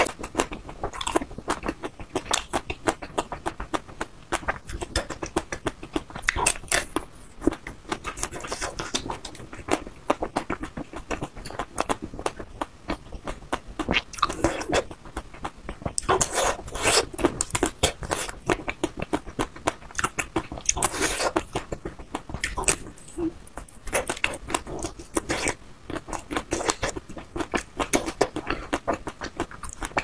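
Biting and chewing a chocolate-coated ice cream bar with a crunchy, nut-studded shell: a dense run of crackling crunches as the chocolate coating breaks, with louder bites every few seconds.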